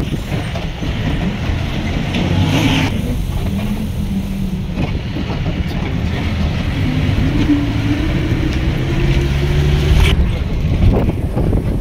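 A motor vehicle running, a steady engine and road drone, with a faint tone rising slowly in pitch over the second half.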